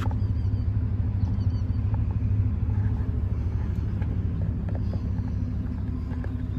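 Chevrolet Silverado 3500HD's 6.0-litre gas V8 idling with a steady low rumble.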